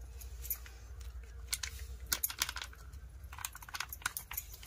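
Glass bangles clinking together on a moving wrist: light, irregular clicks that come thicker from about a second and a half in, over a low steady rumble.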